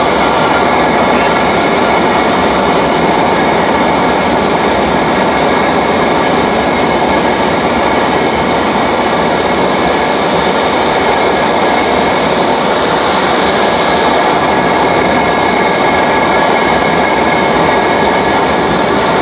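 Cabin noise of a light aircraft on final approach: the engine and propeller drone steadily, mixed with rushing airflow, heard from inside the cockpit.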